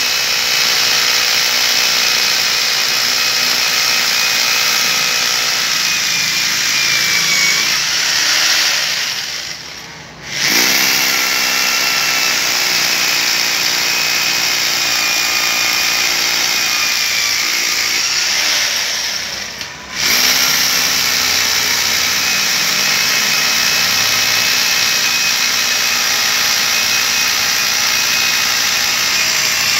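A 2 kg rotary hammer drilling steadily into concrete paving blocks. Twice, about ten and twenty seconds in, the tool is let off and winds down for a moment, then starts straight back up and drills on.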